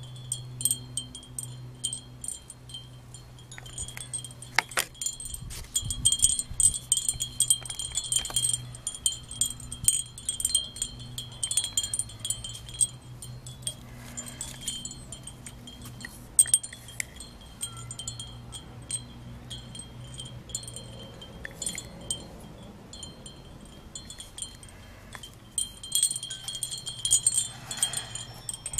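Wind chimes ringing irregularly, many light metallic strikes each leaving a ringing tone, busiest from about four to twelve seconds in and again near the end, over a low steady hum.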